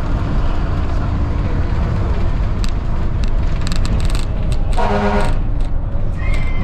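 Dennis Trident double-decker bus under way, heard from on board: a steady low engine and road rumble with a scatter of short clicks from about two and a half seconds in. About five seconds in there is a brief pitched tone lasting about half a second.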